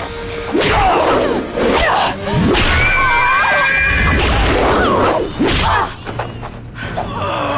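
Soundtrack of an action scene: whooshes and heavy thuds mixed with pitched cries. It is loudest through the middle and quieter near the end.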